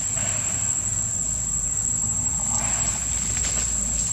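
Insects droning in one steady, unbroken high-pitched tone, with faint low rumble underneath.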